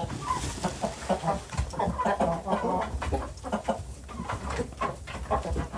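A flock of backyard chickens clucking, many short overlapping clucks from several birds at once.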